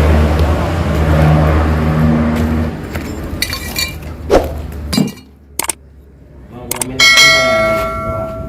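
Yamaha RX-King's two-stroke single-cylinder engine running through its drilled-out exhaust, then dying away about halfway through. Near the end comes a sharp metallic clink that rings on for a second or so.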